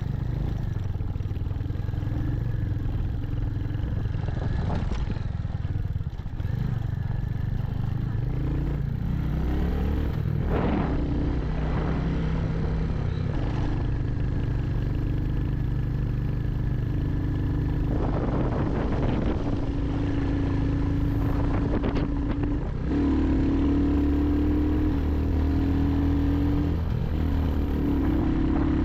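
Royal Enfield Hunter 350's single-cylinder engine running under way, its pitch stepping up and down with throttle and gear changes. Several clattering knocks from the bike jolting over the road come through, louder in the second half.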